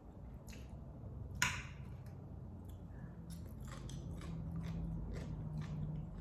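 Close-up chewing and mouth sounds of someone eating: a string of short wet smacks and clicks, one louder about a second and a half in.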